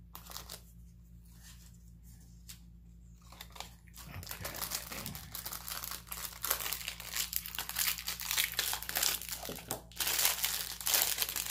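Packaging wrapper crinkling and rustling as it is handled and pulled open, with a few faint rustles at first, then dense and louder crackling from about four seconds in.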